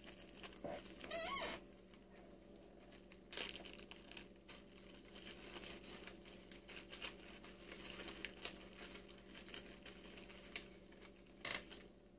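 Small plastic baggie being handled and worked open in the hands: faint crinkling and rustling with scattered soft clicks, over a low steady hum. A brief squeaky rising sound about a second in is the loudest moment.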